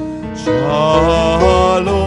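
A Hebrew liturgical song sung with a wavering vibrato over sustained instrumental accompaniment. A new, louder sung note comes in about half a second in.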